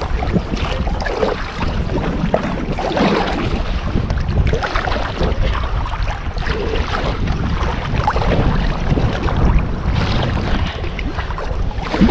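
Wind buffeting the microphone in a steady low rumble, with water splashing irregularly from kayak paddle strokes.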